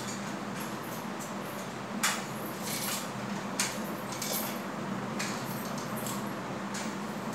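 Crutch tips knocking on a terrazzo floor as a person walks on crutches: about half a dozen sharp, unevenly spaced taps from about two seconds in, over a steady low hum.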